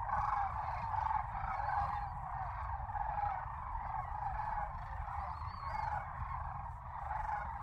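A flock of sandhill cranes calling in flight, many rolling bugle calls overlapping into a continuous chorus.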